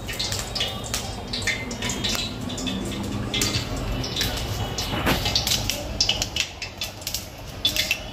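Kitchen clatter: metal utensils and pans clinking and knocking again and again over a steady low hum.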